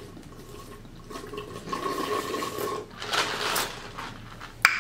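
A person drinking in gulps straight from a large foam cup, the drink sloshing, followed by a loud breath out about three seconds in and a sharp click near the end.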